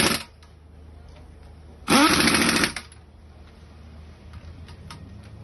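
Power tool running in short rattling bursts, like an impact wrench: one burst cuts off just after the start, and another of just under a second comes about two seconds in. A few faint clicks follow.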